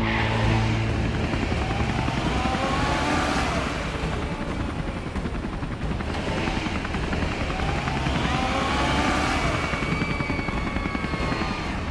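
Cartoon sound effect of a helicopter's rotor chopping steadily, with sirens wailing slowly up and down over it.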